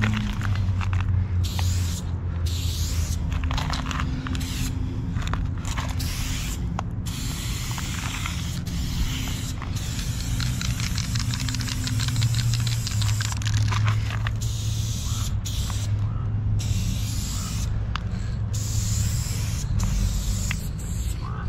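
Aerosol spray paint can hissing in repeated bursts with short breaks between them, over a steady low hum.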